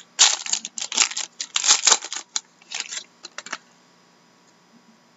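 Foil wrapper of a Panini Dominion hockey card pack crinkling and tearing as it is opened: a quick, irregular run of crackles that stops about three and a half seconds in.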